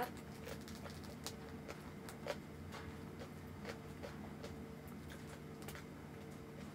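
Eating sounds: scattered small clicks and crackles from chewing and from fingers tearing crispy deep-fried pork leg. A steady air-conditioner hum runs underneath.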